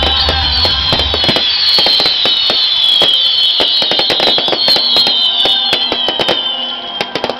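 Fireworks display: dense, loud crackling with many overlapping high falling whistles, thinning to a few last pops near the end.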